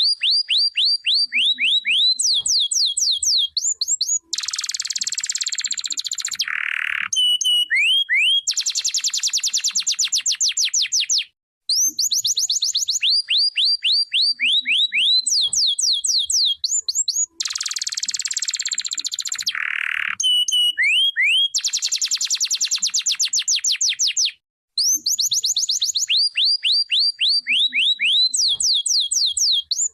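Domestic canary singing a long song of rapid trills and rolls. It moves from runs of fast downward-sweeping notes to dense buzzy rolls, and the same song pattern comes round again about every 13 seconds, with brief pauses between phrases.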